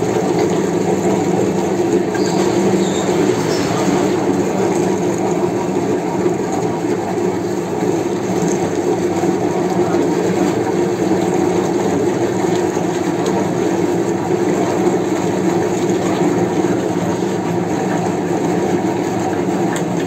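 Old meat mincer running steadily, grinding meat and forcing it out through its plate.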